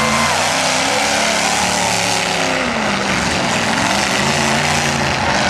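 Demolition-derby pickup truck engines running and revving, their pitch rising and falling, under a steady loud rush of noise.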